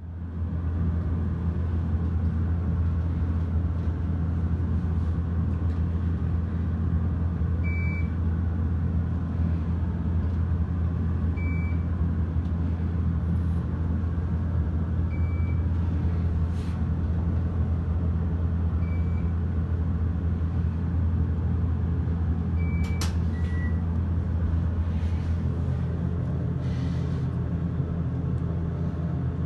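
Elevator car travelling upward: a steady low hum from the lift machinery. A short high beep sounds about every four seconds, five times in all.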